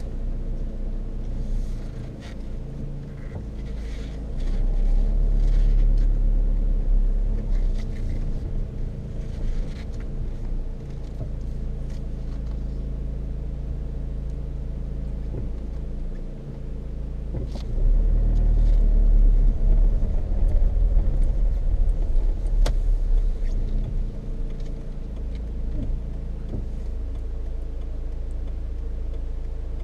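Tyre road noise inside the cabin of a Peugeot 306 2.0 HDi diesel on Dunlop Sport BluResponse tyres: a steady low drone with the engine running underneath, growing louder about 4 s in and again about 18 s in, with a few light rattles. The owner suspects the noise comes from wear of the tyres' tread, since the bearings and suspension have been checked and found fine.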